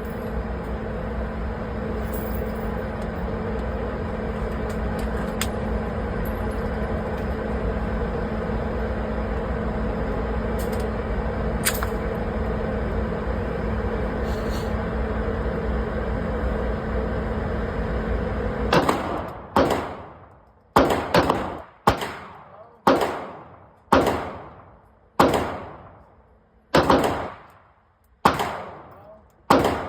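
A steady running noise with a constant low hum, cut off about two-thirds of the way in by an airsoft gun firing about a dozen shots at uneven intervals of roughly a second, each shot sharp and trailing off with an echo.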